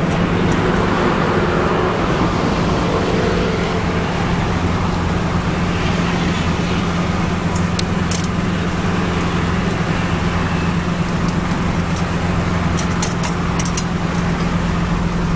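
Steady rumbling background noise with a constant deep hum. A few light metal clinks from tongs and a ladle working in a large metal soup pot come about eight seconds in and again around thirteen seconds.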